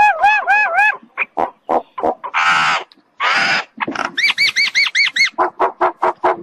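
Common myna singing: a run of repeated arching whistled notes, then clicks and two harsh rasping calls, then another quick run of arching whistles and short repeated notes near the end.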